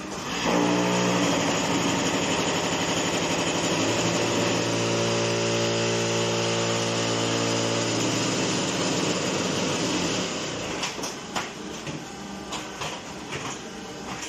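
QT4-15 hydraulic concrete block machine running a forming cycle: a loud, steady droning hum for about ten seconds as the mould is vibrated. The hum then stops and gives way to scattered metallic clanks and knocks.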